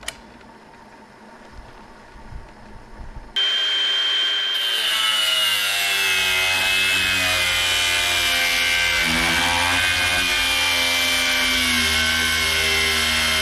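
A small cordless angle grinder starts cutting into a metal plate about three seconds in, then runs loudly and steadily, with a high whine that slowly drops in pitch as the disc bites.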